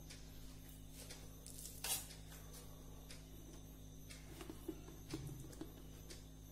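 Faint soft taps and scrapes of a spoon spreading cooked rice on a banana leaf, with one sharper click about two seconds in, over a steady low hum.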